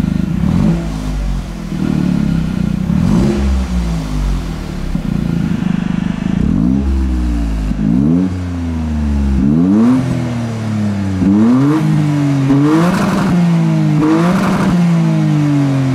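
Toyota GR Yaris's turbocharged three-cylinder engine revved through a freshly fitted, not yet run-in Milltek resonated cat-back exhaust. In the first half the revs rise and fall more slowly; in the second half it is a string of quick throttle blips, each a sharp rise and fall in pitch.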